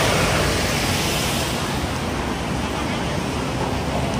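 Busy city street noise: a steady wash of road traffic passing alongside a crowded sidewalk, with faint voices of passers-by mixed in.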